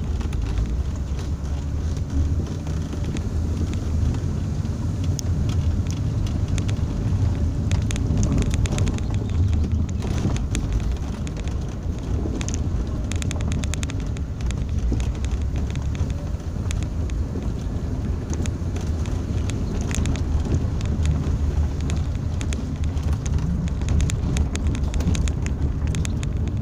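Cabin noise of a 2001 Hyundai Santa Fe 4x4 driving along a rough sandy dirt track: a steady low rumble of engine and tyres, with frequent small knocks and rattles from the uneven ground.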